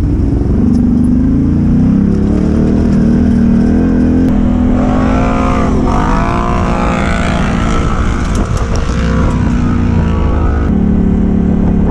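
ATV engine pulling away and accelerating along the trail. Its pitch rises, dips and climbs again about five to seven seconds in, then holds steady.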